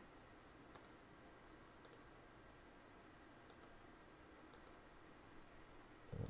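Faint computer mouse clicks in four quick pairs, spread over the first five seconds, over quiet room tone.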